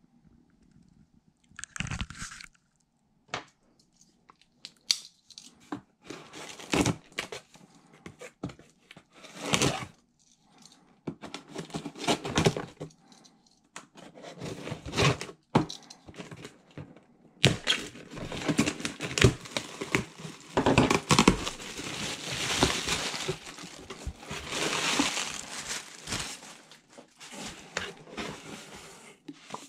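A taped cardboard shipping box being opened: a Swiss Army knife blade slits the packing tape, the tape tears and the cardboard flaps scrape and crinkle, among scattered handling knocks. The longest stretch of tearing and rustling runs from about 17 to 27 seconds in.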